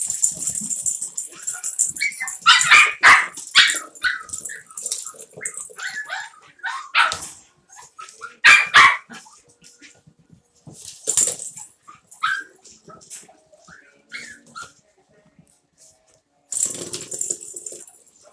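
Havanese puppies barking and yipping in short, high-pitched bursts while they play, with a few brief rustling scuffles between calls.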